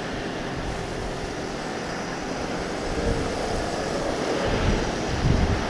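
Motorcycle riding in traffic: a steady rush of wind and road noise with the engine running underneath, growing louder from about halfway, with low wind buffeting on the microphone near the end.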